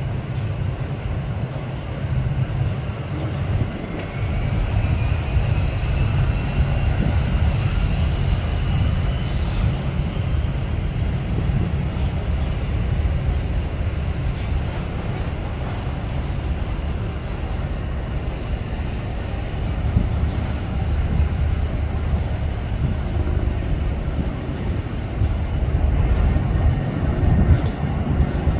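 Engines of Fireboat 7, a catamaran fireboat, running under way as it pulls away, with a steady low rumble and churning water. A faint whine rises over several seconds a few seconds in.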